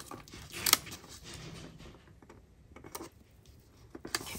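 Hands smoothing and pressing a sticker onto a planner page: faint paper rustling and light taps, with one sharp tap just under a second in.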